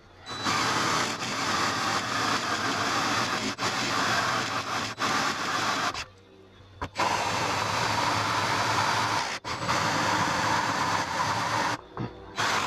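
Cordless drill turning a large hole saw that cuts slowly through the Hilux's sheet-metal front wing, a steady grinding noise. It stops for about a second about six seconds in, then resumes, with another short break near the end.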